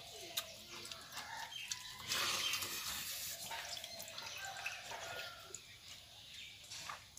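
Chickens clucking now and then in the background. About two seconds in there is a longer soft rustle, with faint handling noise of eating rice by hand from a brass bowl.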